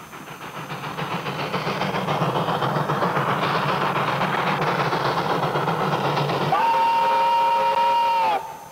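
Steam locomotive running, its hissing steam and running noise building over several seconds. Near the end its steam whistle blows one long steady blast of about two seconds, which cuts off abruptly.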